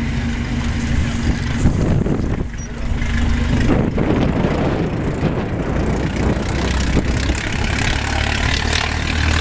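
1916 Stutz Bearcat's four-cylinder engine running steadily, then revving up as the car pulls away and accelerates. There is a short lull about two and a half seconds in.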